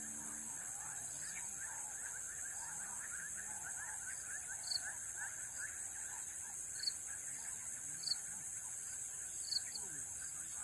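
Swamp ambience: a steady high insect drone over a dense, rapid chirping chorus, with a few short sharp calls standing out a second or two apart in the second half.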